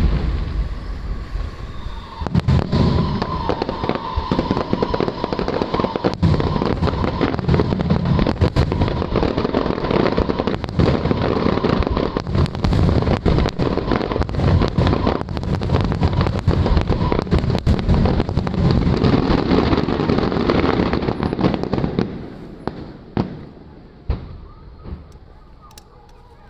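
Aerial fireworks shells bursting in a dense, rapid barrage of booms and crackles. It dies away about four-fifths of the way through, leaving a few last scattered pops.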